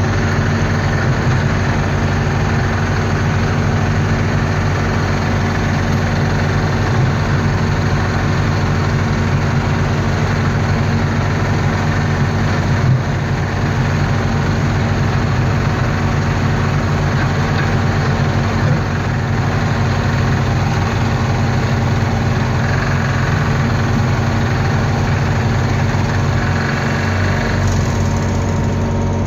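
Engine of a pipe-dredging machine running steadily at a constant speed, with a couple of brief knocks along the way.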